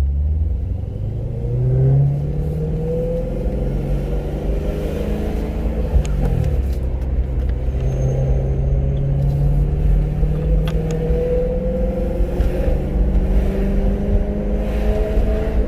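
Supercharged BMW E92 M3's V8 engine running under way, its pitch climbing slowly and dropping back about six seconds in and again near the end, as when driven through the gears.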